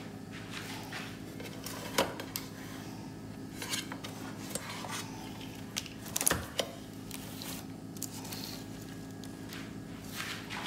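Metal loaf pan handled and set down on a woven bamboo tray: a few sharp knocks and clatters, the loudest about six seconds in, over a steady low hum.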